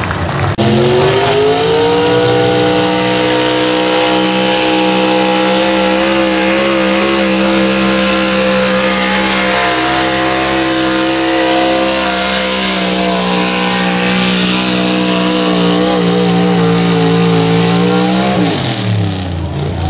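Stock 4x4 pickup truck engine at full throttle pulling a weight-transfer sled. It revs up sharply about half a second in, holds at high revs for most of the pull, then drops off near the end as the pull finishes.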